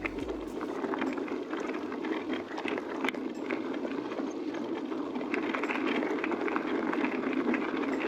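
Mountain e-bike tyres rolling over a rough gravel bridleway: a steady rumble of tyre noise with a constant crackle of small stones, growing a little louder in the second half.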